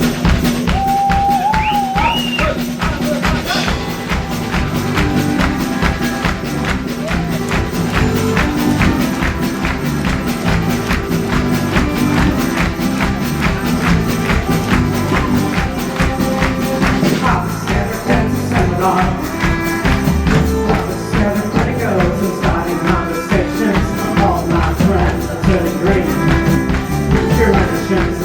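Live band playing a song, with a steady tambourine beat over bass and chords.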